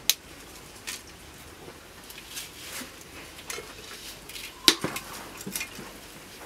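Scattered light clicks and knocks of ingredients being handled on a wooden chopping board, with one sharper knock about two-thirds of the way through.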